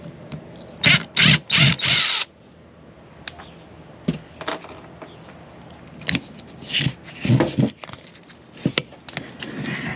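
Cordless drill-driver running in about four short bursts as it backs a mounting screw out of an RV shore-power inlet. These are followed by scattered light clicks and knocks of plastic parts being handled.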